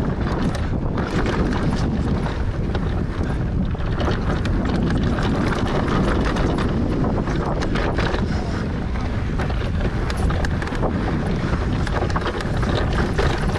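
Wind rushing over the microphone of a mountain bike riding fast down a dry dirt trail, with tyre noise and many small clicks and rattles from the bike over rough ground.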